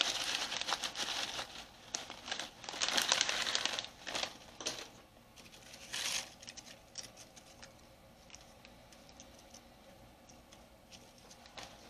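Crinkly tortilla chip bag rustling as handfuls of chips are pulled out, in several bursts over the first five seconds and once more about six seconds in. After that, only faint light ticks as the chips are set down on a foil-lined sheet pan.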